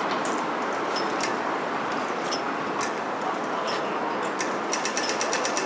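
Australian pedestrian crossing signal ticking over steady street traffic noise: slow locator ticks about once a second, then a rapid run of ticks near the end as the walk signal comes on.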